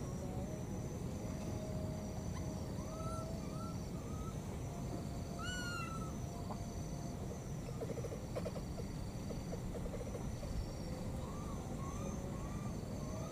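Baby macaque giving short, high arched contact calls, a baby's cries for its mother: a few single calls, one shrill squeal, then a quick run of repeated calls near the end. Behind them is a steady outdoor background with an on-off high shrill tone and a brief rattle of clicks in the middle.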